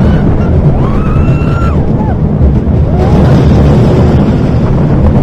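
Small roller coaster train running along curving steel track, a steady rumble mixed with wind buffeting the microphone, and a few short high-pitched squeals over it.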